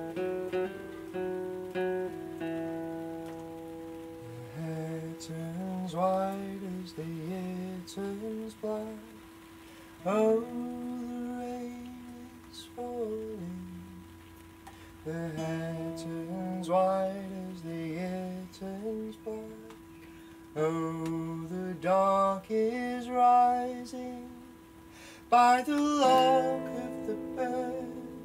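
Slow instrumental folk tune, with one note held steady underneath it throughout and a melody above whose notes bend in pitch.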